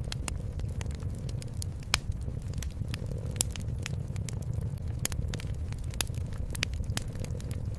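Wood fire crackling, with sharp irregular pops scattered throughout, over a steady low rumble of a cat purring.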